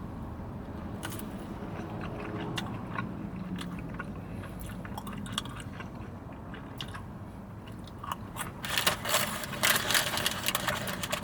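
A person chewing a mouthful of spicy chicken McNugget with spicy mayo, close to the microphone: scattered wet mouth clicks and crunches that grow denser and louder near the end.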